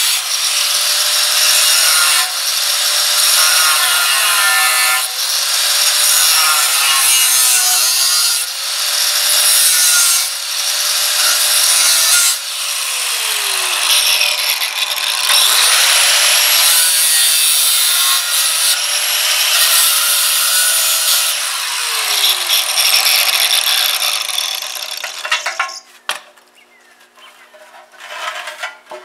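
Angle grinder with a 0.045-inch cutting wheel cutting through the rusted steel rim of a rear tractor wheel, a harsh grinding whose motor pitch wavers under load. The motor sags about halfway and again later. The cutting stops a few seconds before the end, followed by a few knocks as the steel wheel is handled.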